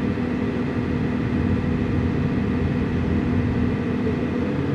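Heavy diesel truck engine running steadily with an even drone; it sounds smooth.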